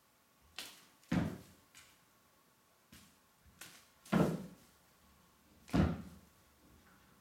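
A cat's paws thumping on a wooden floor as it pounces and lands chasing a wand toy: a string of short thuds, the loudest about a second, four seconds and six seconds in.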